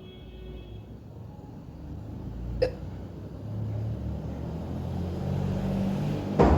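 A person hiccuping twice: a small hiccup about two and a half seconds in and a louder one near the end. These are real hiccups that came on just after eating. A low steady rumble grows louder underneath.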